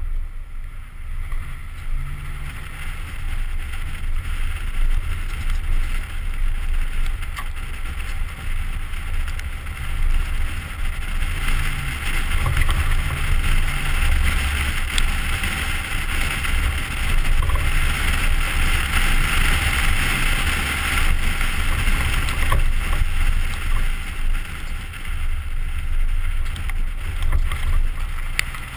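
2010 Ford Raptor's 6.2-litre (380 cu in) V8 running as the truck drives off-road: a steady low rumble, with a rushing noise that grows louder through the middle.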